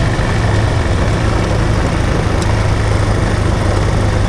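Motorcycle engine running steadily while riding, a constant low drone.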